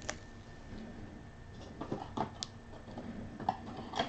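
A few soft clicks and taps from trading cards being handled, about two seconds in and again near the end, over faint room tone.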